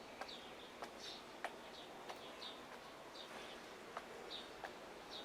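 Birds chirping faintly: short high notes repeating about every half second over a soft background hiss, with a few sharp ticks now and then.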